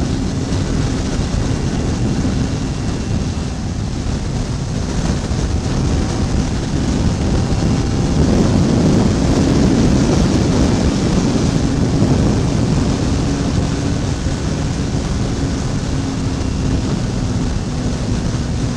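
Wind rushing over the camera microphone at riding speed, with the Yamaha YZF600R sport bike's inline-four engine holding a steady drone underneath. The rush swells a little around the middle.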